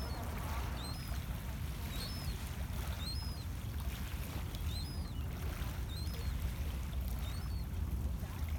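Small waves lapping on a pebble lakeshore, with birds giving short high chirps about once a second over a steady low rumble.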